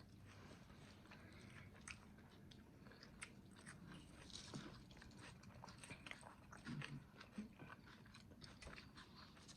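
Faint chewing of a mouthful of grinder sandwich on toasted bread, with scattered small crunches and wet mouth clicks.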